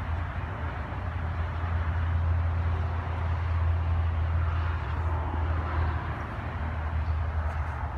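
The 6.7-liter Cummins turbo-diesel inline-six of a 2016 Ram 2500 idling steadily, heard from the open engine bay.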